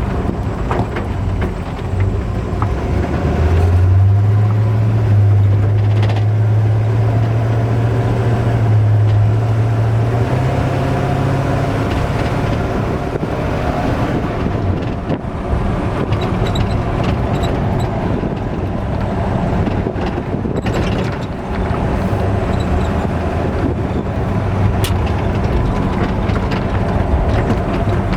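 1952 Ford F1 pickup's V8 engine with dual exhaust running while the truck drives. The engine note climbs about four seconds in, rises again near ten seconds, then settles back to a steadier hum.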